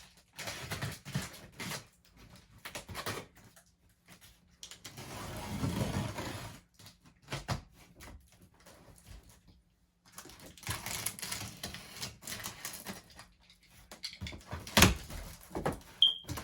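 Cardboard shipping box being opened and handled: flaps and packing rustling, with scattered clicks and knocks and one sharp knock near the end.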